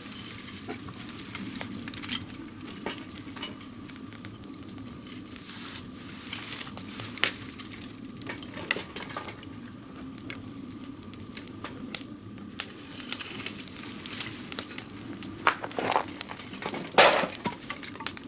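Small wood fire being coaxed alight in a Swedish torch log: a steady hiss with irregular sharp crackles and snaps, the loudest pops near the end.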